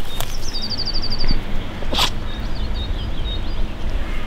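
A small songbird's fast trill of about ten high repeated notes in the first second or so, then a few short chirps, over a steady low rumble. A single sharp click about two seconds in.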